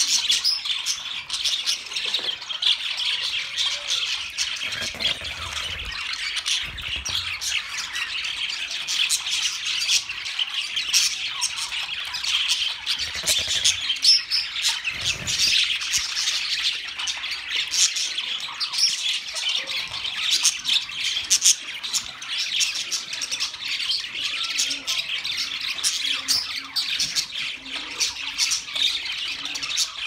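A flock of budgerigars chattering continuously, a dense overlapping mix of many short high chirps and squawks.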